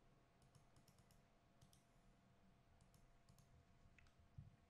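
Near silence broken by a few faint computer mouse clicks, scattered through the pause.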